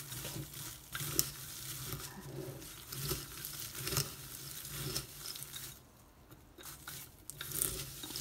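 Puffed black soybeans being tossed and stirred with two wooden spoons in a glass bowl: an irregular dry rattling and scraping, with a short lull about six seconds in.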